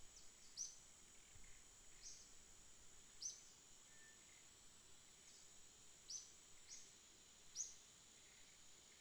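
Faint background of short, high bird chirps every one to two seconds, over a steady high-pitched insect drone.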